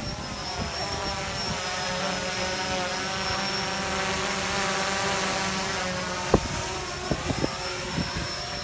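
DJI Phantom 4 quadcopter drone's propellers whining steadily nearby, with a sharp knock a little over six seconds in and a few lighter clicks after it.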